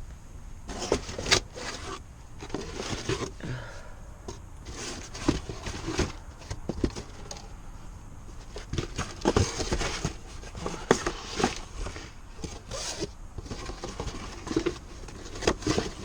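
Irregular clicks, knocks and scraping of parts and packaging being handled during an ECM blower motor replacement, with a few sharper knocks.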